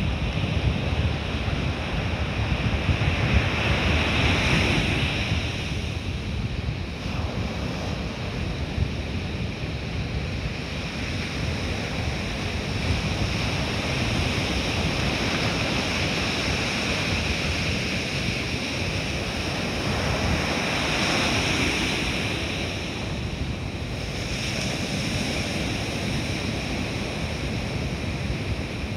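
Ocean surf breaking and washing up the beach, messy with a strong onshore wind, and wind rumbling on the microphone. The wash swells louder twice, a few seconds in and again about two-thirds of the way through.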